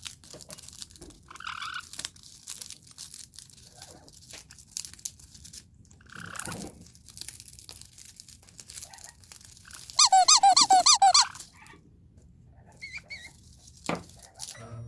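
Parrots chewing and shredding toys and treats, making scattered crunches and clicks. About two-thirds of the way through comes a loud, rapid run of about eight high squeaks.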